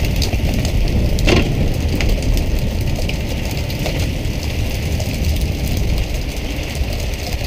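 Fishing boat's engine running steadily under a continuous rush of water spraying and splashing along the hull, with one short sharp knock about a second in.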